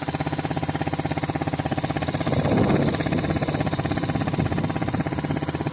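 A motor vehicle's engine running with a steady, even pulse, growing somewhat louder about two seconds in.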